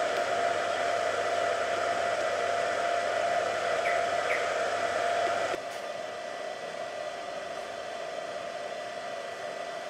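A 100AH car battery charger's cooling fan running steadily with a low mains hum while it charges a car battery. It is louder for the first five and a half seconds, then drops to a quieter steady noise.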